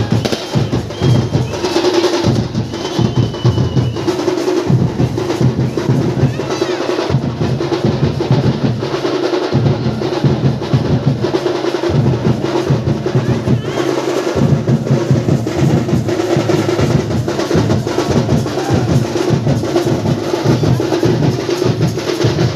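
Drums beaten loudly and continuously in a fast, driving rhythm, with rapid rolling strokes over a heavy low beat.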